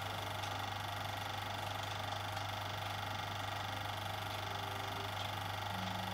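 8mm film projector running film through: a steady motor hum with a fast, even mechanical chatter from the film-advance mechanism.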